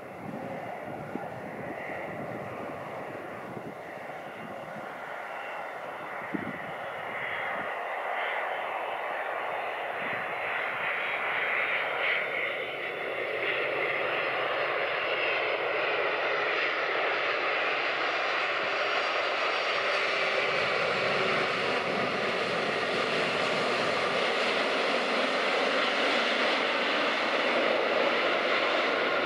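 Boeing 767-300 jet engines running steadily through touchdown and the landing roll, growing louder over the first half as the airliner comes nearer, then holding loud.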